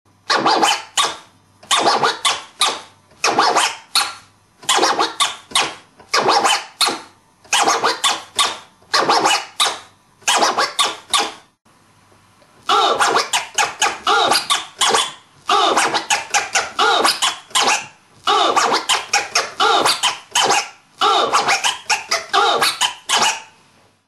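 Vinyl record scratched on a Technics turntable and chopped by the mixer fader: quick, sharp stabs worked in with tears, drops and baby scratches, in repeating patterns with no beat under them. The first pattern stops just before halfway and, after a short pause, a second pattern starts.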